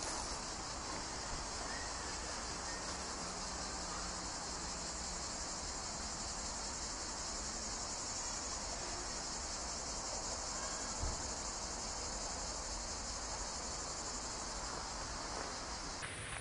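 A steady, high-pitched chorus of chirring insects, over a faint low rumble; the chorus thins abruptly just before the end.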